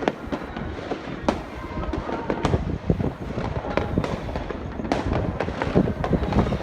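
Fireworks exploding in quick, irregular succession: sharp bangs, loudest just after the start, about 1.3 s in and near 5 s, over a continuous rumble of more distant bursts.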